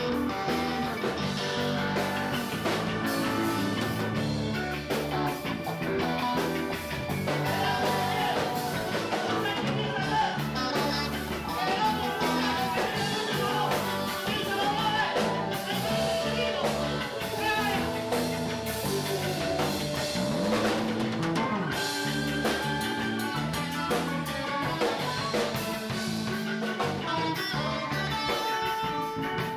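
Live rock band jamming: a semi-hollow electric guitar and a drum kit play steadily, with a bass guitar and a singer's voice in the mix.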